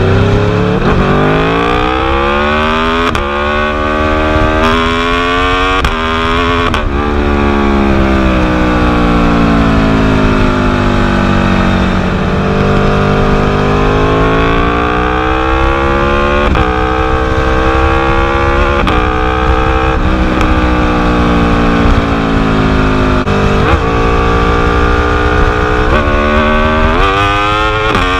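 Aprilia RSV4's V4 engine through an Austin Racing exhaust, revved up sharply and falling back again and again, some drops long and slow. A few sharp pops and crackles come from the exhaust as the revs fall.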